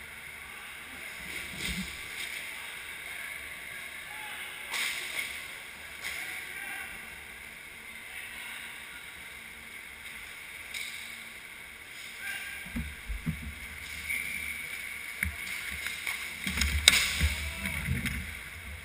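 Inline hockey rink ambience heard from inside the goal: a steady hiss with faint distant voices. From about two-thirds of the way in come low rumbling and knocks as skaters approach and the goalie moves, with one sharp clack near the end.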